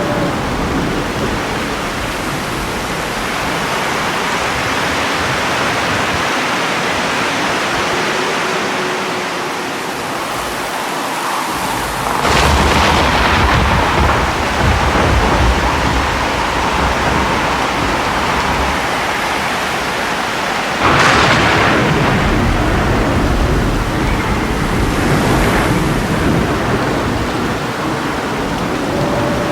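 Thunderstorm: steady rain with two cracks of thunder, about twelve seconds in and about twenty-one seconds in, each followed by a long low rumble.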